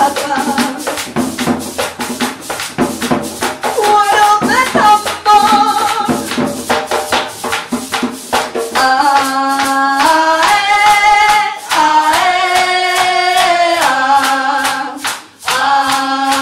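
Live Colombian folk ensemble: a woman singing with other voices joining in, over a hand drum, rattling percussion and hand clapping in a steady rhythm. The singing grows fuller, several voices together, about nine seconds in.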